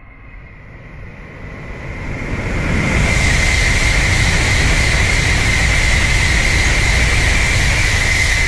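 N700-series Shinkansen bullet train passing through the station at speed without stopping. A rush of air and wheel-on-rail noise builds over the first three seconds into a loud, steady roar with a high whine running through it.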